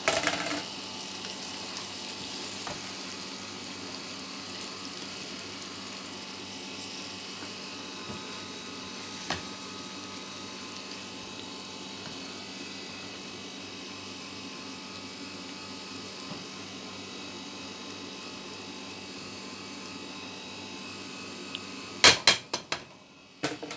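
Chopped tomatoes, peppers and canned tuna frying in a pan: a steady sizzling hiss. A few sharp clatters near the end.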